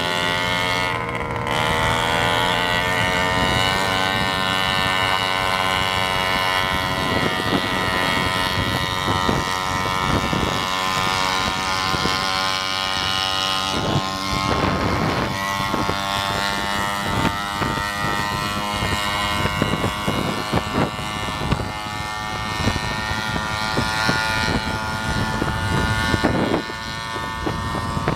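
Two-stroke 50cc scooter engines running hard at high revs with a steady, buzzing drone. One is a Yamaha Neos running without an exhaust pipe. The pitch drops about a second in, then holds steady, with wind buffeting the microphone at times.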